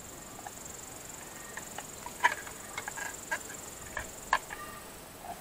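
Light clicks and taps of plastic pool-pump parts being handled as a bushing and washer are fitted onto the impeller shaft, the two loudest clicks a little over two seconds and about four seconds in. A steady high-pitched tone in the background stops about four and a half seconds in.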